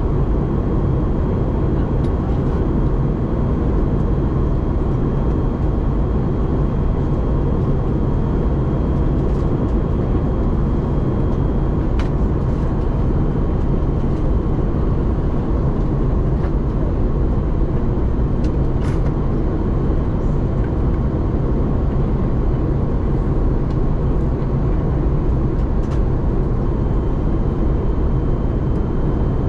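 Steady in-flight cabin roar of an Airbus A321neo heard at a window seat, engine and airflow noise, with a faint high steady tone.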